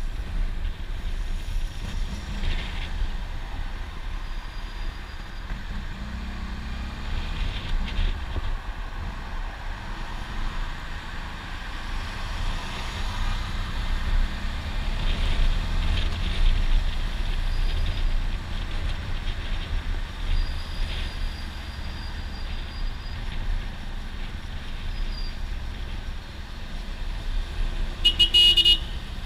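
Wind rushing over a helmet-mounted microphone with the low running of a Suzuki V-Strom 650's V-twin engine underneath, riding at city-traffic speed. A short, loud, high beep sounds near the end.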